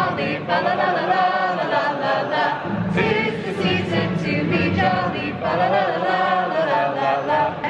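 Many voices singing together: a concert audience singing along with a choir from printed lyrics, in phrases with short breaks between them.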